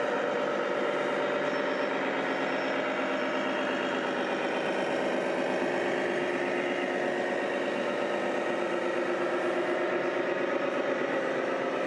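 Scale RC truck's sound module playing a diesel engine idling steadily.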